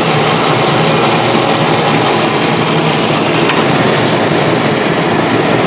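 A John Deere tractor's engine running steadily under load while its mounted snowblower churns through a snowbank and throws snow out of its chute, a loud, unbroken machine noise.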